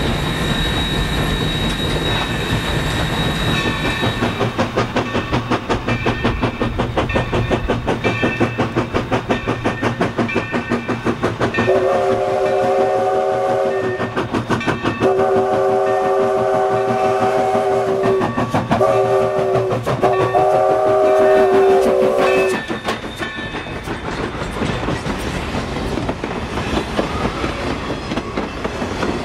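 New Haven #3025, a 2-8-2 Mikado steam locomotive, working hard with a rapid, even exhaust beat. Partway in it sounds its chime steam whistle four times, long, long, short, long: the standard signal for a grade crossing. Near the end the freight cars roll by with a clickety-clack of wheels over the rail joints.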